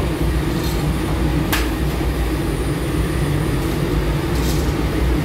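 Automatic taftoon bread machine running: a steady low mechanical rumble, with one sharp click about a second and a half in.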